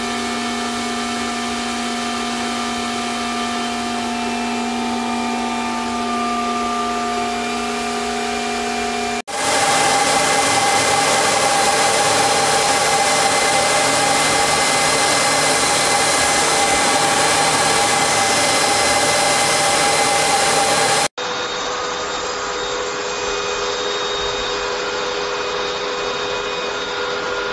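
Cryptocurrency ASIC mining machines running, their cooling fans giving a steady rushing whir with a high fan whine over it. The sound changes abruptly at about 9 and 21 seconds as different machines take over, the middle one louder.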